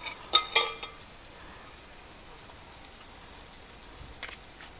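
Flounder fillet frying in butter and a little vegetable oil, a faint steady sizzle. Two quick ringing clinks against the glass mixing bowl come in the first second.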